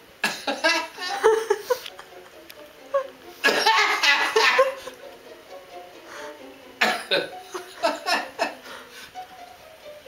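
A man laughing hard in three loud bouts, the first about a quarter-second in, the second around three and a half seconds in, the third near seven seconds. Between the bouts a television's film soundtrack, voices and music, plays more quietly.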